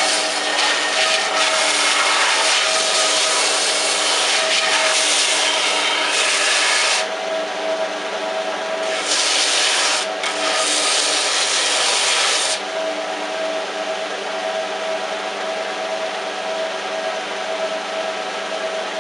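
An electric sanding tool runs steadily while a Tassie oak axe handle is pressed against it for two long passes, the first about seven seconds, the second about three and a half seconds with a short break in it. The motor then runs on alone.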